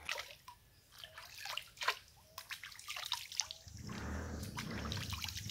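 Shallow river water dripping and splashing as a toddler's hair is washed in it: scattered drips and plinks at first, then steady splashing and pouring from about four seconds in.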